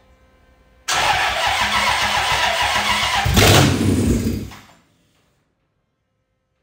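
Starter cranking the Toyota 3UZ-FE V8 for about four seconds, with a louder burst about three and a half seconds in as the engine fires briefly, a "bam bam"; it stops abruptly without running on.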